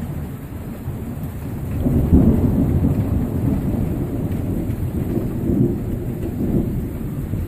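Thunder rumbling after a nearby lightning strike, swelling about two seconds in and rolling on for several seconds, with rain falling.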